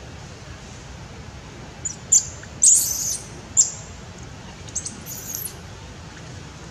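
Several short, high-pitched squealing calls from an animal. A cluster comes about two to three and a half seconds in, the longest and loudest lasting about half a second. A quieter group follows around five seconds, one call arching up and then down in pitch.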